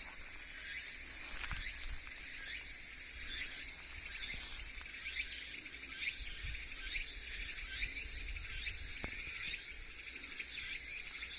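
Insects calling: a steady high shrill with short chirps repeating every second or so, over a faint low rumble.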